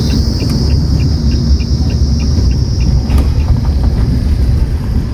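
Tata Nexon SUV driving on a paved mountain road, heard from inside the cabin: a steady low rumble of engine and tyre noise with a steady high hiss above it. Faint light ticks about four times a second sound in the first few seconds.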